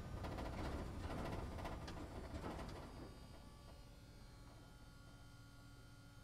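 Inside a London double-decker bus: road rumble and cabin rattles for about three seconds, fading as the bus slows, leaving a steady hum with a few held tones.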